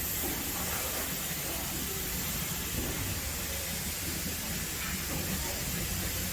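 Steam locomotive standing in steam, giving off a steady hiss of escaping steam over a low rumble, with faint voices in the background.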